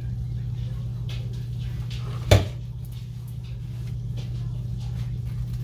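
A single sharp household knock about two seconds in, a cupboard-door or dish clunk, over a steady low hum.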